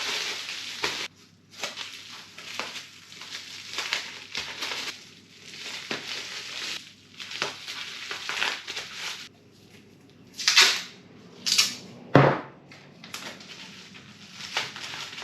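Packing materials being handled and crumpled: irregular crinkling and rustling, with three sharper, louder bursts about ten to twelve seconds in.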